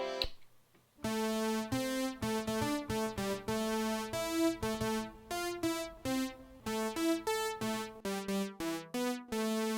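Roland JU-06A synthesizer playing a quick run of short, bright notes at changing pitches, after a gap of about a second, and settling into a held note near the end.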